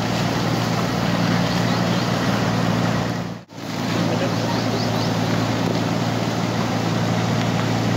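Floodwater of a swollen river rushing, a loud steady roar of water; it drops out briefly about three and a half seconds in, then resumes.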